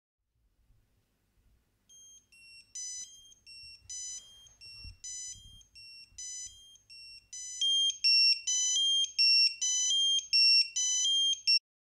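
Firefighter's alarm pager sounding a call-out alert: a repeating melody of short, high beeps, quiet at first and much louder from about halfway through, stopping just before the end.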